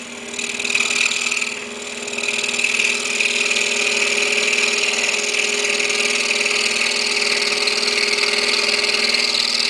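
Excalibur scroll saw running with its fine blade cutting into a maple blank. The sound builds over the first second, then holds steady as a mechanical whir with a buzzing blade stroke.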